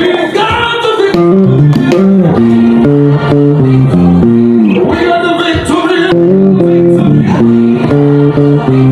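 African praise music with a bass guitar playing a simple 1-4-1-5 bass line over a band backing track.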